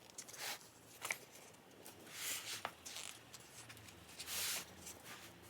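Soft rustling of an album photobook's paper pages being handled and turned: a few short swishes, the loudest about four seconds in.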